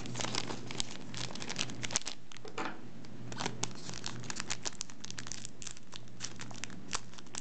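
Foil booster-pack wrappers crinkling and trading cards being handled, in a string of small irregular crackles and ticks.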